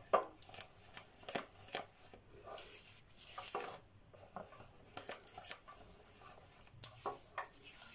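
Silicone spatula stirring thick béchamel sauce in a nonstick saucepan: irregular soft scrapes and light taps against the pan.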